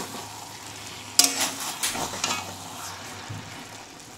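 Steel spatula stirring and scraping tomato rice in a metal kadai, clinking against the pan several times between about one and two and a half seconds in, over a faint steady sizzle.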